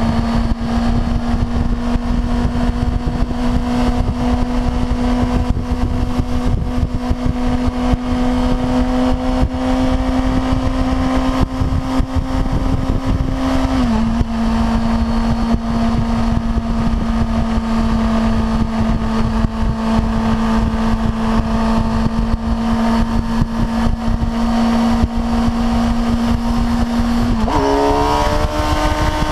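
A Suzuki GSX-R600's inline-four engine runs at a steady cruise and slowly gains revs, with wind and road noise underneath. About halfway the pitch dips briefly, and near the end it drops, then climbs steeply as the bike is revved up hard.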